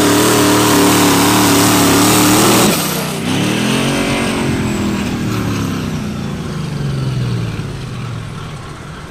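Pulling truck's engine running flat out under load, then the sound drops abruptly about three seconds in and the engine winds down, its pitch swelling briefly and then falling away over the next few seconds: the engine has let go, and it catches fire.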